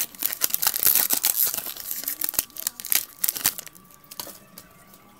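Foil wrapper of a basketball trading-card pack being torn open and crinkled by hand: dense crackling for about three and a half seconds, then dying away.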